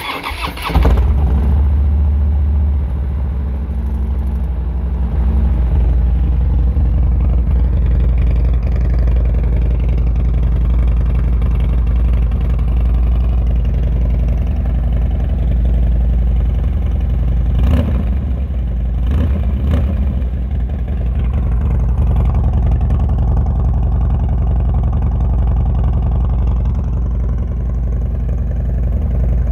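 A 2014 Harley-Davidson Dyna Street Bob's air-cooled Twin Cam V-twin starts up and catches within about a second, then settles into a steady, loud idle rumble through a Basanni Road Rage 2-into-1 chrome exhaust. A couple of brief sharp knocks come a little past halfway.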